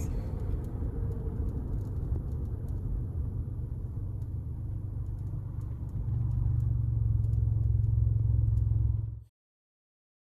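Steady low rumble of a moving car heard from inside the cabin. It grows louder and deeper about six seconds in, then cuts off abruptly near the end.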